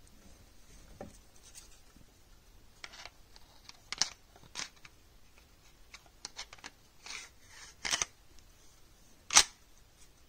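Glock 35 pistol being reassembled by hand: the recoil spring assembly is seated in the slide and the slide is run back onto the polymer frame, giving scattered metal clicks and short sliding scrapes. The sharpest click comes near the end.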